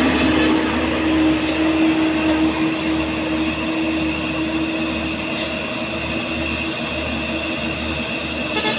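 Heavy diesel trucks labouring up a steep grade: a steady engine drone with a low hum that is strongest at first and fades over the first half as the nearest truck pulls away.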